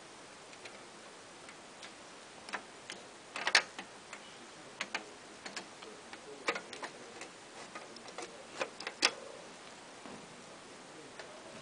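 Irregular clicks and clacks of piano-key switches, push buttons and a lever being worked by hand on an old Soviet-era equipment control panel, the loudest about a third of the way in and again about three quarters through.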